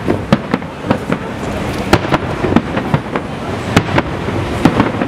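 Fireworks display: about a dozen sharp bangs from bursting shells at irregular intervals, over a steady background rumble.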